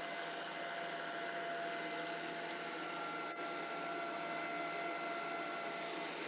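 iCLEBO Omega robot vacuum running steadily: its suction fan and brush motors make an even hum with a thin high whine.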